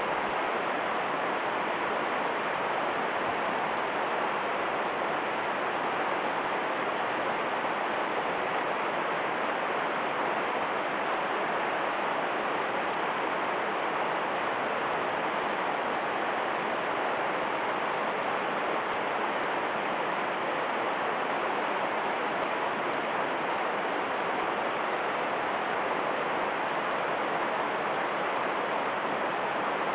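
River water rushing steadily over rocks, heard from mid-stream: an even, continuous rush with no breaks.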